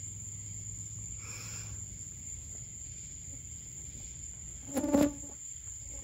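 Annual cicadas singing: a steady, high-pitched drone throughout, with a brief loud burst about five seconds in.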